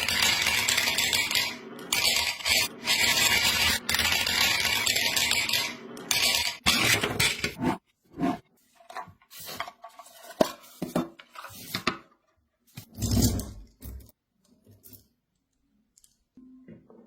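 Marbles clattering against toy vehicles and block track: a dense, continuous rattle for about the first eight seconds, then scattered single clicks and knocks as a few marbles roll and drop.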